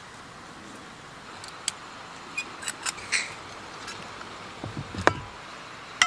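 A few light clicks and taps of small objects being handled, then a soft knock with a sharper click about five seconds in, over a faint steady hiss.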